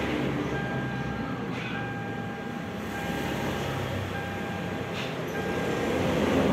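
A steady low mechanical hum with a faint high whine; no distinct events.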